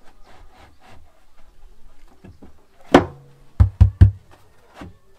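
A large subwoofer driver being handled and set into a plywood cabinet: light clicks and scrapes, then about three seconds in a loud knock that rings briefly in the box, three quick deep thumps, and a smaller knock near the end.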